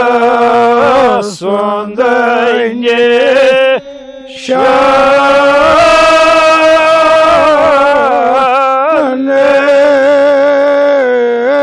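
A man chanting a Kashmiri marsiya, an elegy for Imam Hussain, solo in long drawn-out notes with a wavering pitch. He breaks off briefly for breath about four seconds in.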